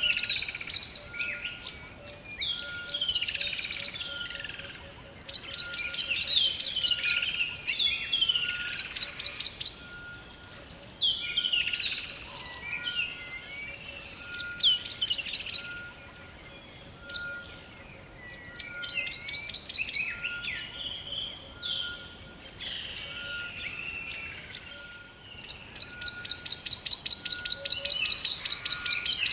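Songbirds singing in a forest chorus: overlapping phrases of rapid high trills and sliding whistled notes, one every couple of seconds, over a faint high note that repeats steadily a little more than once a second. Near the end one bird holds a long, unbroken rapid trill.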